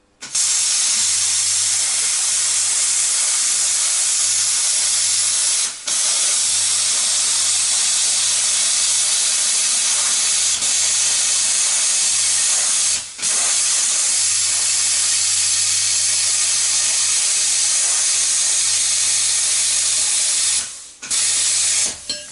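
Plasma cutter cutting steel: a loud, steady hiss of the arc and air jet with a low hum under it. It breaks off for a moment three times as the trigger is released and pressed again, then stops near the end.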